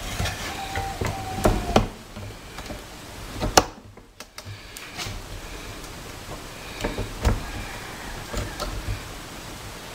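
Scattered light clicks and knocks of clear plastic turbine parts being handled and set into place in the housing, the sharpest about three and a half seconds in.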